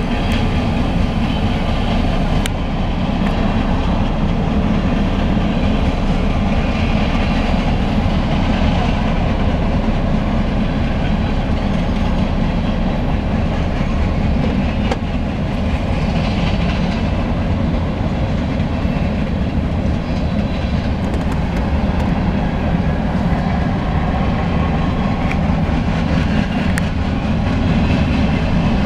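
Long freight train rolling past at steady speed: the continuous rumble of its cars' wheels on the rails, with an occasional click.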